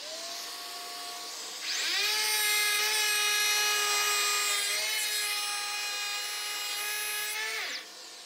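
Bosch GHO 12V-20 cordless brushless planer: the motor spins up to a steady whine, then about two seconds in the cutter head bites into the board. The sound turns louder and coarser, its pitch dipping slightly under load, for about six seconds of planing, and drops back to the quieter free-running whine near the end.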